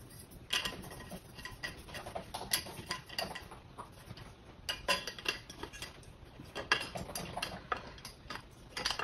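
Irregular metallic clicks and clinks of a wrench, a long screw and the table's metal frame pipes being handled while the screw is fitted into the frame.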